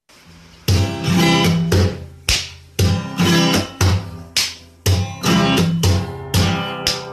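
Background music: an acoustic guitar strummed in a steady rhythm, about two chords a second, coming in loud just under a second in.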